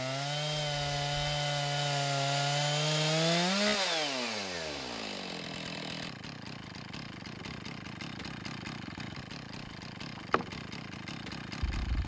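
Chainsaw on a chainsaw mill running at full throttle as it rips lengthwise through a squared timber, its pitch creeping slightly upward. About four seconds in the throttle is let go and the engine winds down, leaving a quieter hiss with a single click near the end.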